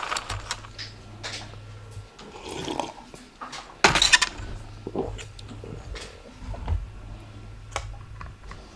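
Small tools and parts handled on a workbench: scattered light clicks and clinks, with a louder rustling scrape about four seconds in and a low hum underneath.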